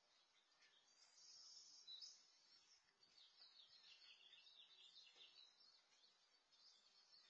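Faint birds chirping, with a run of quick chirps from about three to five seconds in.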